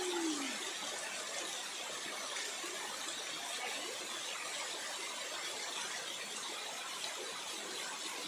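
Waterfall cascading down steep wet rocks: a steady rush of water.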